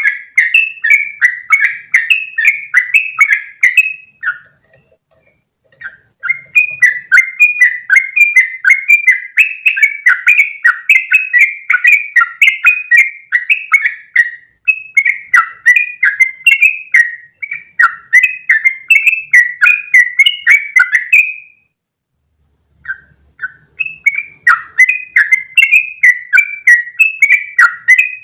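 Yellow-vented bulbul (trucukan) singing long, rapid runs of short chattering notes. It breaks off briefly twice, about four seconds in and again past the twenty-second mark.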